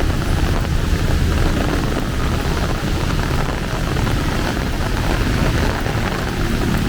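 Heavy rain falling steadily, with a constant low rumble underneath.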